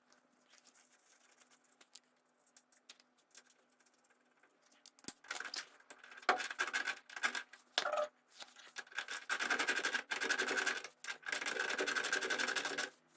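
A ratchet wrench clicking rapidly in long runs, with short pauses, as it drives in the engine-mount bolt of a GY6 scooter. Before that, about the first five seconds hold only faint scattered clicks of handling.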